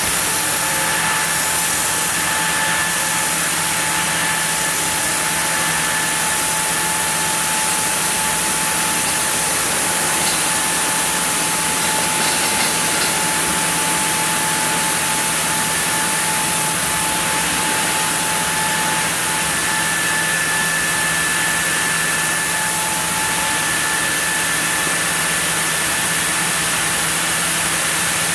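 Sawmill saw running steadily through a zelkova log block: a continuous, unchanging machine hum and hiss with a faint steady whine.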